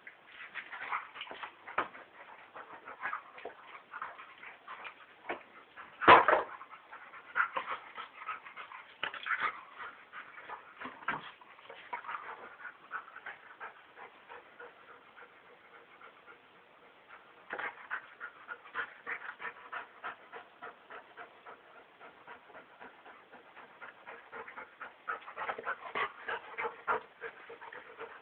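Two dogs play-wrestling: whimpers and short scuffling noises come and go, with one loud knock about six seconds in and a quieter lull midway.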